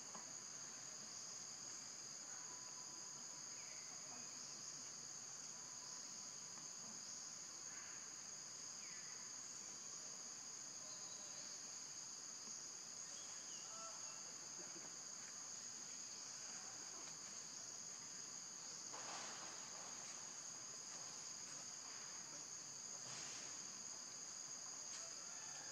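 Steady chorus of forest insects: an unbroken, high-pitched two-tone drone, faint, with a few brief soft rustles near the end.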